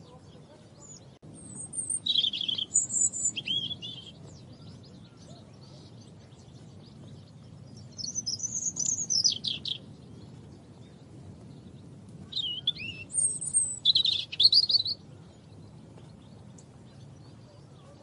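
European robin song: three short phrases of high, thin warbling notes with pauses of several seconds between them, over a faint low background rumble.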